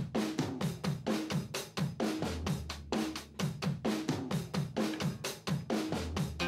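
Background music: a rock drum kit playing a steady beat on its own, with kick drum, snare and hi-hat, as the intro of a song.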